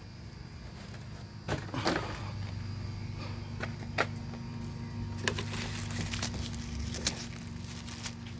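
Aluminium foil masking crackling and clicking a few times as it is handled and pulled back from a truck tailgate, over a steady low hum.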